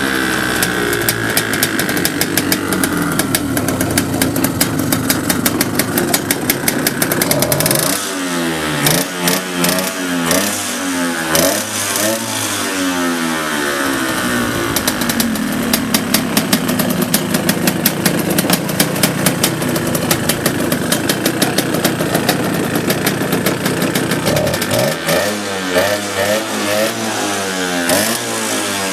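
Go-kart engine running at a steady speed, revved up and let back down several times from about eight seconds in and again near the end. It runs evenly with no abnormal noise, as the seller states.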